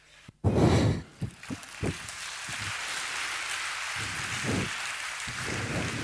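Large audience applauding, a loud burst about half a second in settling into steady clapping.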